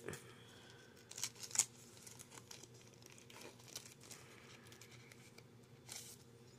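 A Pokémon card booster pack's foil wrapper being torn open and crinkled: faint scattered crackles, with sharper rips about a second and a half in and again near the end.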